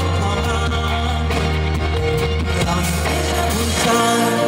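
Live performance of a Cantonese pop love song: a male singer's voice over band accompaniment. The low bass drops out near the end, leaving lighter instrumental backing.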